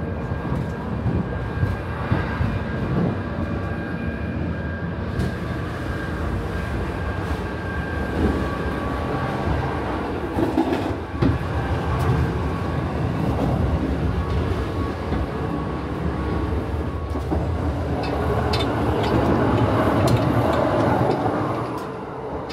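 Interior running noise of the Kintetsu Aoniyoshi express train at speed: a steady rumble of wheels on rail with scattered clacks over rail joints. It grows a little louder toward the end.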